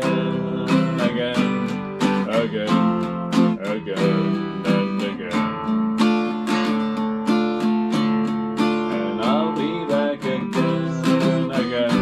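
Acoustic guitar strummed steadily with no singing: the instrumental ending of a song after its last sung line.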